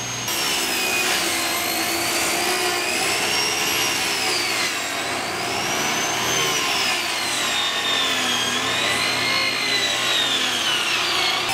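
Table saw ripping a sheet of plywood into long strips: a steady cutting noise with a blade whine that slowly rises and falls in pitch under the changing load.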